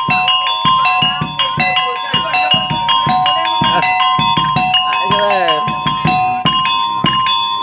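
Live topeng monyet street-show music: small gamelan-style metal percussion struck in a fast, steady repeating pattern over low hand-drum strokes, the metal notes ringing on.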